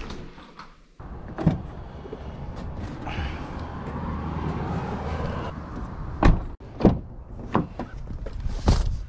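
A door latch clicks as a door is opened, then a steady rushing background with several sharp knocks and bumps as cardboard mailing boxes and a plastic tub are loaded into a car, the loudest near the end.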